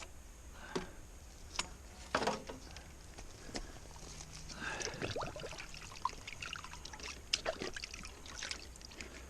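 Water sloshing and trickling with scattered knocks and clicks, as a small water pump's filter is taken off and rinsed to clear out debris.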